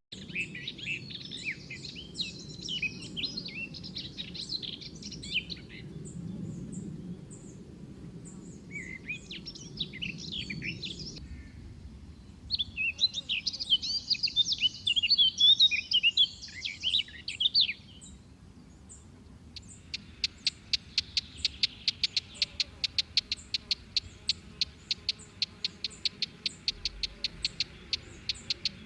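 Birds chirping and twittering in several bursts, then a fast, even series of short repeated high notes that runs for several seconds.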